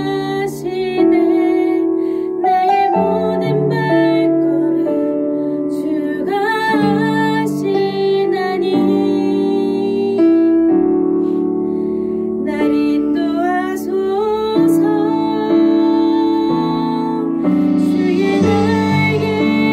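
A slow Korean worship song sung solo over piano accompaniment, the voice holding long notes over sustained chords.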